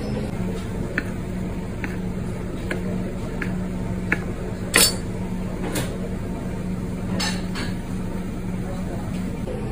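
Chef's knife cutting through food on a wooden cutting board: about five light, evenly spaced taps of the blade on the board, then a few louder sharp knocks. A steady low hum runs underneath.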